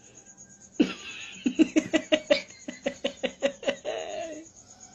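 A person laughing: a sudden start about a second in, then a run of quick pitched 'ha' pulses, about five a second, that tails off near the end.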